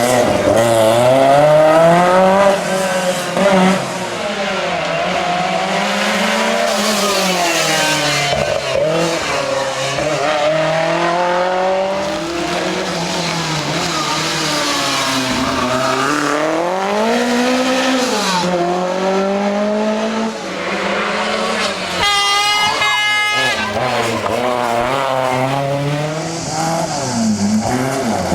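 Lancia Rally 037's supercharged 2.1-litre four-cylinder engine revving hard, its pitch climbing and dropping again and again through gearchanges. About 22 seconds in, a brief high-pitched tone cuts through.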